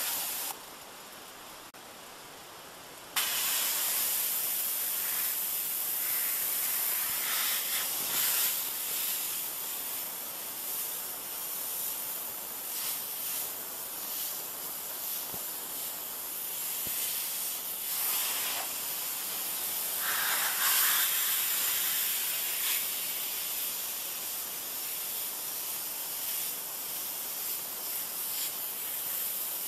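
High hiss of a 3000 psi pressure washer's water jet spraying onto plastic lawn chairs, rising and falling as the spray moves across the chair. It drops off about half a second in and comes back sharply about three seconds in.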